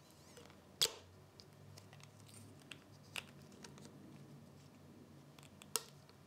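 Faint handling noise of copper pipe being worked out of a SharkBite push-to-connect fitting while a plastic disconnect clip holds the release collar in, with a few sharp clicks, the loudest about a second in and near the end.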